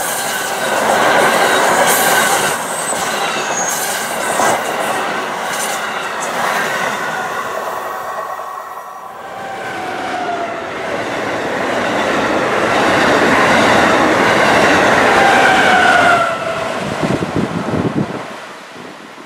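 Amtrak electric passenger trains passing at speed, first a train of stainless Amfleet-type cars and then an Acela Express trainset, their wheels rumbling on the rails with flange squeal gliding in pitch. The noise dips briefly about nine seconds in, rises again, and ends with a few wheel clicks before fading out near the end.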